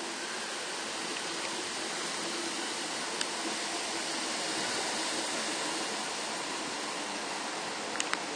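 Steady rushing hiss of railway station ambience, with a single sharp click about three seconds in and a few sharp clicks near the end.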